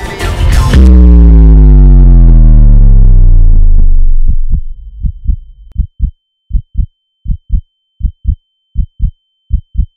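Music cuts into a loud, deep tone that slides steadily down in pitch over about three seconds and fades, a dramatic sound-design drop. A thin, steady high ringing tone comes in around four seconds, and from about five seconds a heartbeat sound effect thumps in paired lub-dub beats, about one pair every three-quarters of a second.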